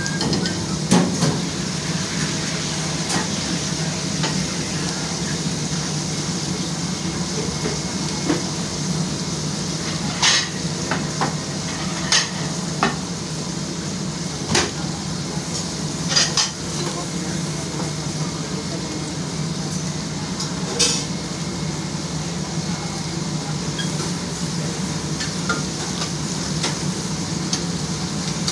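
Food sizzling as it fries, with scattered sharp clicks of a metal utensil against the cookware over a steady low hum.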